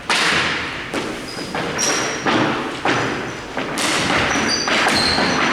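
Hockey play: a run of about six hard thuds and sharp cracks, each with a short echo, from pucks, sticks and players hitting the rink boards.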